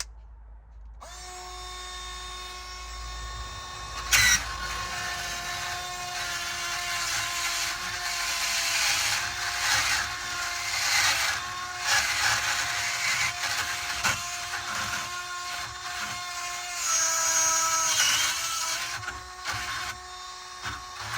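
Cordless high-speed rotary tool starting up about a second in and running with a steady whine while a Magi burr bit grinds into a UAP lock. There is one sharp clack about four seconds in, and the whine dips briefly in pitch under load near the end.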